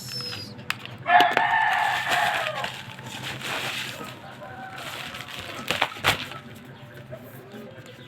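A rooster crowing once, a long call starting about a second in that falls in pitch at the end. A few sharp clicks follow near the middle.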